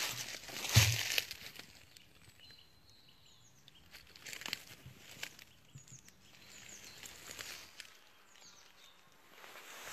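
Footsteps crunching and rustling through dry leaf litter, loudest about a second in with a low thump, then a few lighter steps. Faint bird chirps in the background.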